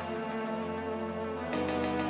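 Instrumental background music: sustained chords that change about one and a half seconds in, over a light, quick ticking beat.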